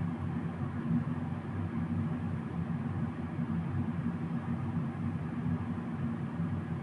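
Steady low-pitched hum or rumble of background noise, even throughout, with no distinct events.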